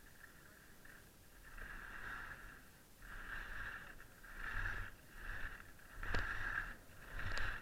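Skis scraping and hissing over choppy, cut-up snow in a series of short turns, swelling about once a second and growing louder from about a second and a half in, with two sharp clicks near the end.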